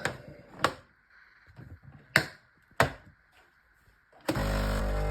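A few sharp plastic clicks and knocks as the milk pod and pod holder are fitted into a NESCAFÉ Dolce Gusto machine. Then, about four seconds in, the machine's water pump starts with a loud steady buzz, pushing hot water through the milk pod.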